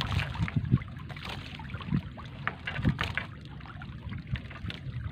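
Wet trammel net being hauled by hand over a boat's rail, water spattering and dripping off the mesh with crackly ticks, and uneven low thumps and splashes.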